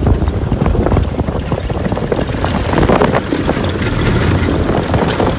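Snowcat on the move through snow: the engine runs steadily under a continuous clatter from the cleated track, with wind buffeting the microphone.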